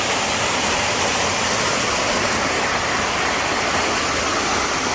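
Steady rush of a waterfall and running stream water.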